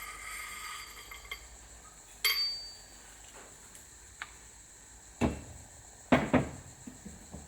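Metal motorcycle fork parts being handled: a faint rattle, a sharp metallic clink with a short ring, then a few heavier knocks as the parts are put down.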